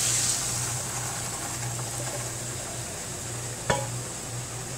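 Boiling water poured onto ghee-fried rice and onions in a hot pan, sizzling and hissing. The pour ends within the first second and the sizzle settles to a steady, softer hiss, with one sharp knock later on.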